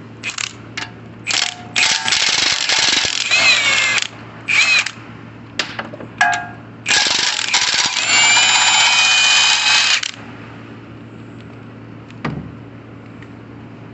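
Power tool run in short bursts and two longer runs of a few seconds, its motor pitch rising and falling, backing out the oil pan bolts on a 6.0 LS V8 engine.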